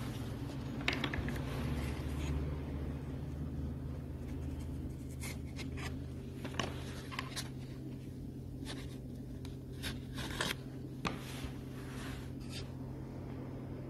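Cardboard mold strips scraping and clicking as they are pulled out of hardened geopolymer, with scattered short scrapes over a steady low hum.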